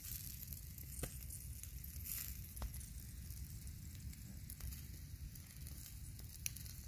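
Whole chicken roasting on skewers over a wood fire: faint sizzling and crackling with a few sharp pops, over a low rumble.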